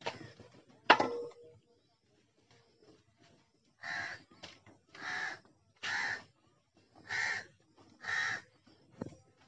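A crow cawing five times, about one harsh caw a second, in the second half. About a second in, a single sharp knock is the loudest sound.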